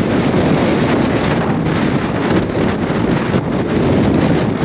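Strong, gusty wind ahead of a hurricane blowing across the microphone: a loud, steady rush of wind noise, heaviest in the low range.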